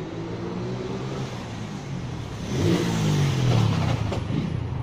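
A motor vehicle running and passing close by, louder from about halfway through, its engine note bending up and down as it goes past.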